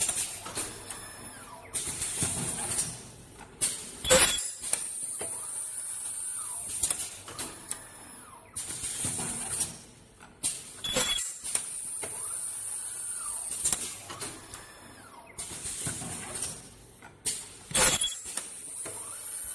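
JC-450S-U automatic ultrasonic welding machine running through its box-forming cycle. A sharp clack with a brief squeal comes about every seven seconds, between stretches of high hiss and softer mechanical movement.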